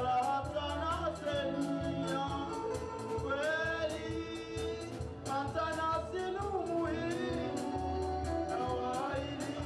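Live twarab-style band with a man singing into a microphone, his melody sliding between notes, over guitar, bass and a steady beat of high cymbal ticks.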